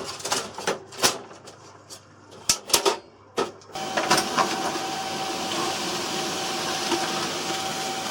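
A few scattered clicks and knocks. About four seconds in, a Canon MF3010 laser printer starts and runs steadily with a whirr and a constant whine as it prints a test page with a freshly refilled Canon 725 toner cartridge.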